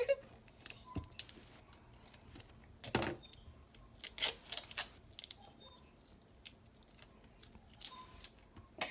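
Scattered clicks, crackles and small pops from hands handling slime and its small plastic containers, with a few louder clicks about three seconds in, three close together just after four seconds, and one near the end.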